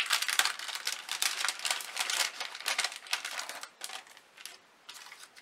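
Clear plastic packaging crinkling as thin wood veneer word pieces are unwrapped by hand: rapid, dense crackling that thins out about four seconds in to a few light rustles.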